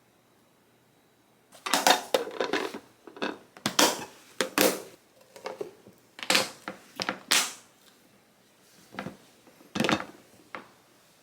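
An irregular series of sharp clicks and knocks from hard objects being handled, a dozen or so over about nine seconds, starting about a second and a half in.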